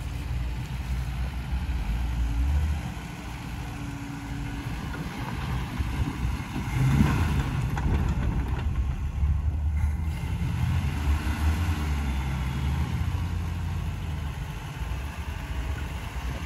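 Small 4x4 pickup truck's engine running as it crawls up a rocky dirt hill, with a low rumble that swells about halfway through.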